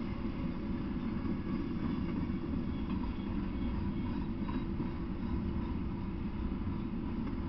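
Double-stack intermodal freight train rolling past, its steel wheels on the rails making a steady low rumble, heard through a trail camera's small microphone.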